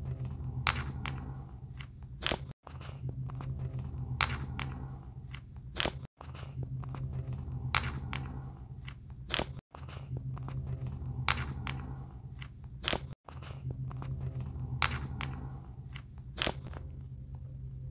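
A short phone recording in a small bathroom plays about five times over, with a brief dropout between repeats. It holds a steady low hum, rustling handling noise and a sharp click in each repeat. The uploader presents it as a faint conversation between two spirits (EVP).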